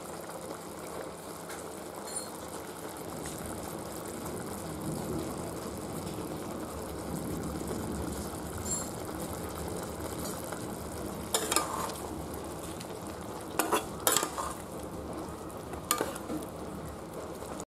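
Chicken in a thin yogurt-lemon sauce bubbling and sizzling steadily in an aluminium kadai over full flame. From about eleven seconds in, a spatula stirs the pan and knocks against the metal a few times with sharp clinks.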